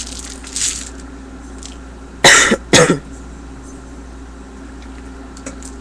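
A man coughing twice in quick succession, loud and close to the microphone.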